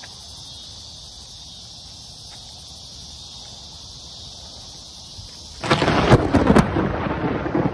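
Thunderclap from a close lightning strike: a sudden, very loud crack about five and a half seconds in, with sharp cracking for the next second and then rumbling on. Before it there is only a steady high-pitched hiss.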